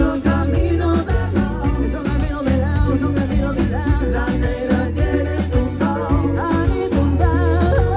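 Live Latin band playing a salsa number: a strong steady bass and percussion rhythm with a wavering melody line over it.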